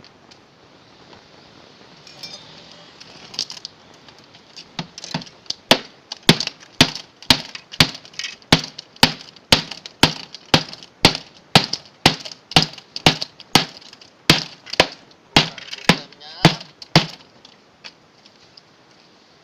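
Machete chopping into a refrigerator's body, about two sharp blows a second for some thirteen seconds, as it is hacked apart for scrap.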